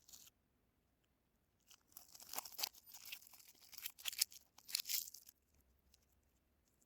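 A soap bar's wrapping being torn open and crinkled by hand, heard as crisp crackling and rustling. There is a brief crackle at the start, then a dense run of it from about two seconds in until past five seconds.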